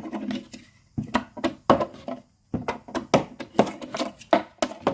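Mokuru fidget sticks being flipped and landing on a wooden desk: a quick, irregular run of sharp knocks and taps, several a second.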